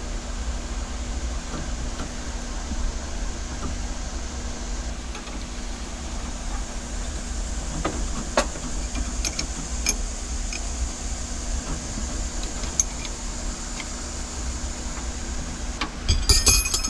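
Small metallic clicks and taps of a wrench on the brass fittings of an oil pressure gauge line as they are tightened, over a steady low hum, with a quick run of clicks near the end.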